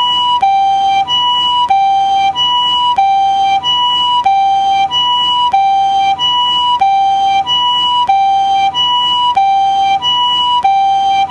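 Japanese ambulance siren sounding its two-tone "pee-po" call. It alternates evenly between a higher and a lower tone, each held about two-thirds of a second at a steady pitch, repeating continuously.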